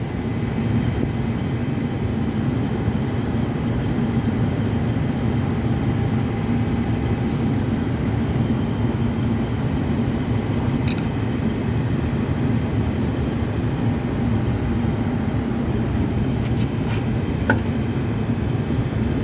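Steady low drone of running machinery with a faint high steady whine, and a couple of faint clicks about eleven and seventeen seconds in.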